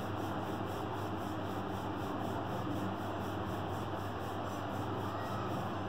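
Rolling pin rolling out floured dough on a board into a round sheet, a steady rubbing sound.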